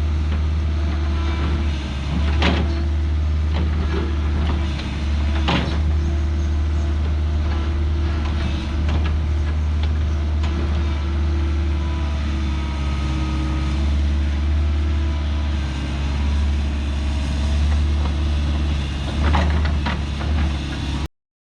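Excavator engine running steadily under digging load, with sharp metal clanks from the bucket three times: twice in the first six seconds and once near the end. The sound cuts off abruptly just before the end.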